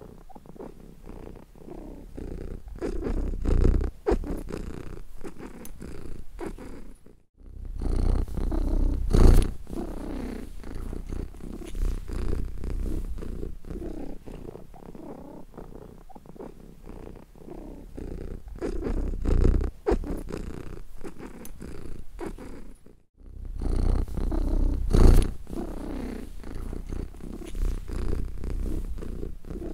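Domestic cat purring, a steady run of fine pulses that swells and fades in waves every few seconds. The purr drops out briefly twice, about seven and twenty-three seconds in.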